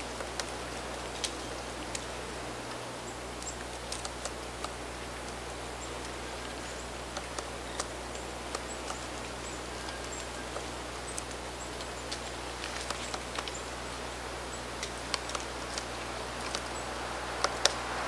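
Black-backed woodpecker pecking and flaking bark off a tree trunk: sharp, irregular taps, roughly one or two a second with small clusters, over a steady hiss.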